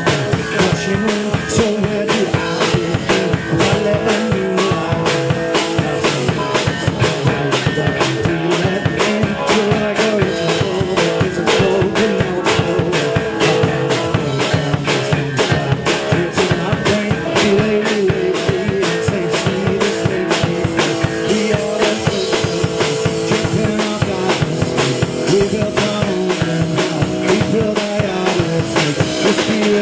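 A rock band playing live and loud: drum kit keeping a steady beat under electric guitars and bass guitar.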